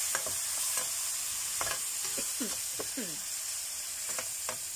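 Water sizzling and hissing in a hot wok of sautéed vegetables and spice paste, with a metal spatula clicking and scraping against the pan. A few of the scrapes fall in pitch around the middle.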